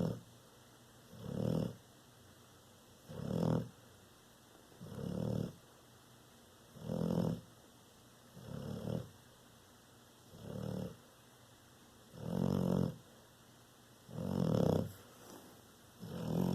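A Bullmastiff American Bulldog snoring in a steady rhythm: about ten snores, one roughly every two seconds, each lasting about half a second.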